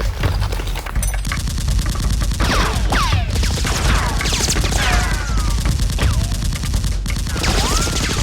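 Rapid, sustained automatic gunfire sound effects, with sweeping whistles passing through about two and a half seconds in and again near the end.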